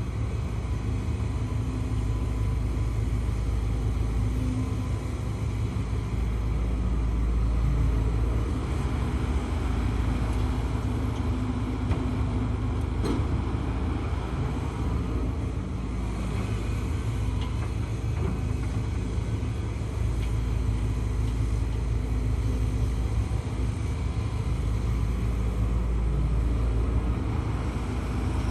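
Diesel engine of a HIDROMEK HMK230LC excavator running steadily under work, with a deep, even rumble.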